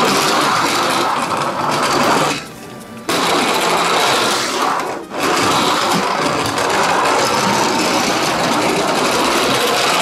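Small battery-powered toy motor whirring loudly, in three runs with brief stops about two and a half seconds and five seconds in.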